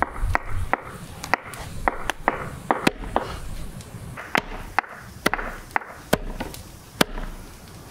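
Knife chopping raw lamb into chunks on a wooden board: a series of sharp knocks as the blade strikes the wood, about two or three a second, with a short pause around the middle.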